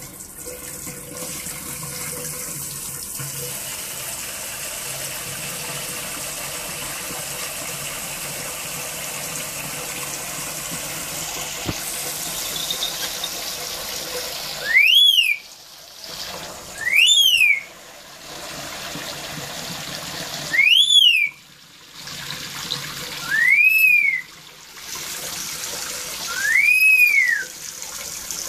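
Steady running water, with five loud, shrill whistles from a black-capped lory starting about halfway through, each sweeping up and then down in pitch.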